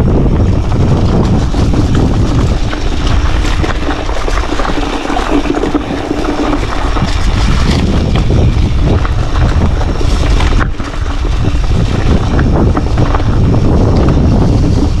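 Mountain bike rattling and clattering over stones on a descent, with wind rushing over the camera microphone. A dense run of short knocks sits under a constant low rumble.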